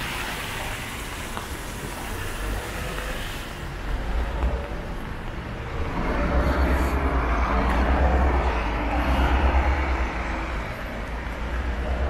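City street traffic: a steady hum of cars, with one vehicle passing close from about six to ten seconds in, its low rumble swelling and then fading.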